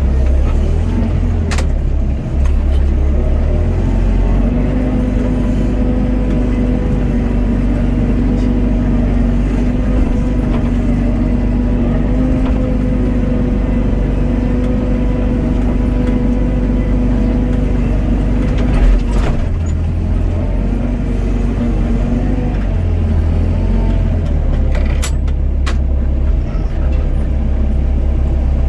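Doosan DX55 mini excavator's diesel engine running steadily, with a held tone under hydraulic load from about four seconds in until about nineteen seconds in, and a few sharp clicks and knocks.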